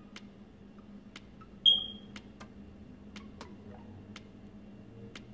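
Steady ticking, about one tick a second, over a faint low hum. About a second and a half in comes a single sharp ping with a short ringing tail, the loudest sound.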